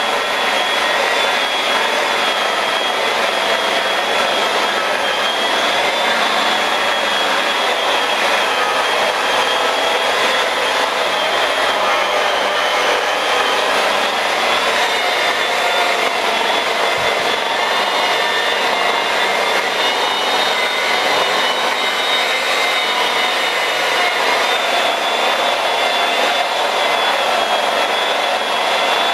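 Rotary polisher with a foam pad running continuously against a car's painted panel, machine-cutting a scratch with cutting compound. Its motor gives a steady high whine that wavers a little in pitch.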